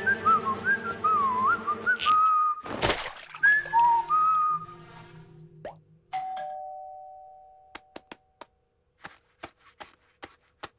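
Cartoon soundtrack: a wavering whistled tune over light music, broken by a short whoosh about three seconds in. A bell-like ding about six seconds in fades over about two seconds, and is followed by a string of soft, irregularly spaced clicks.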